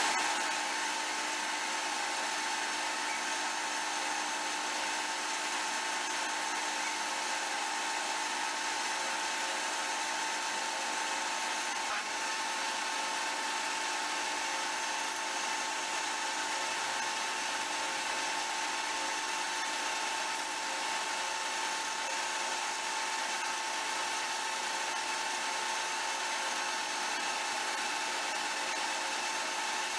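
Metal lathe running steadily with a steady whine while a steel end cap spins in its chuck, being faced, then filed and polished by hand.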